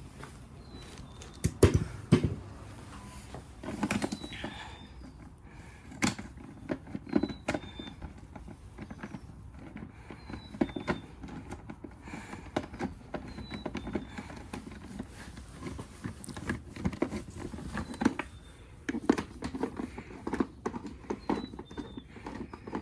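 Intermittent clicks, knocks and scraping of hand tools and plastic generator parts being handled while a Honda EU2200i generator is taken apart to get at its recoil starter.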